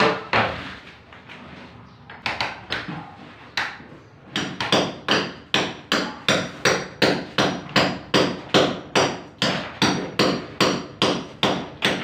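Sharp, hammer-like knocks on wood: a few scattered ones, then from about four seconds in a steady run of about three strikes a second that stops suddenly at the end.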